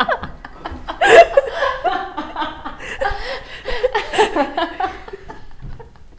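Three women laughing together, loudest about a second in and tailing off near the end.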